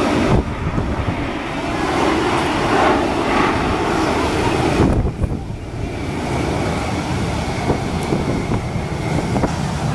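Formation of Aermacchi MB-339 jet trainers flying overhead, their Rolls-Royce Viper turbojets making loud jet noise. The noise swells, dips about five seconds in, then settles to a steadier rush with a thin high whine.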